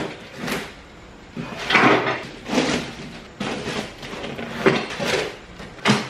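A cardboard box being slit open with a utility knife and handled: a handful of separate scraping, rustling cardboard sounds and knocks as the tape is cut and the box and its flaps are lifted and set down.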